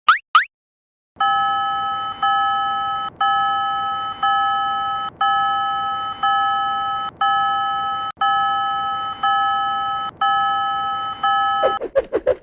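Level-crossing warning bell sound effect (Japanese fumikiri 'kan-kan') ringing slowly, about once a second, each ring fading before the next. It opens with two quick rising chirps and a short gap. Near the end a rapid fluttering warble of about ten pulses a second cuts in.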